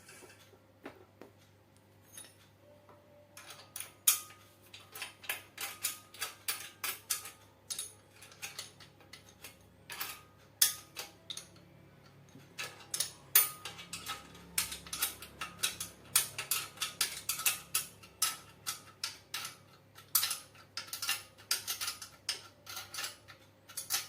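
Hand tools working the metal parts of a home-built grinder's frame and tension adjuster: an irregular series of sharp metallic clicks and clinks, several a second in clusters, starting about four seconds in.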